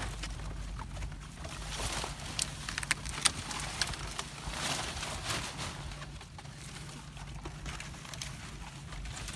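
Palm fronds rustling and scraping as a bundle of them is pushed and packed down into a hole in the ground, with scattered sharp snaps and crackles, the sharpest about three seconds in.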